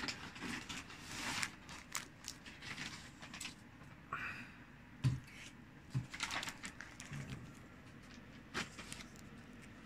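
Faint, sporadic handling noises: light crinkles, rustles and taps of snack packets being picked up and put down, with two soft thumps about five and six seconds in.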